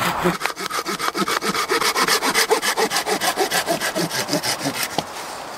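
Folding hand saw cutting through a branch of a fallen spruce in quick, even back-and-forth strokes, several a second, ending in a single sharp knock about five seconds in.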